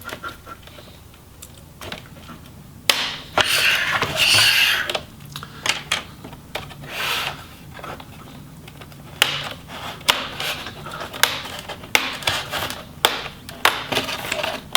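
An MSI GT72 laptop's display bezel being pried off its back cover: a flat tool scraping along the seam, with several sharp clicks as the snap clips pop loose.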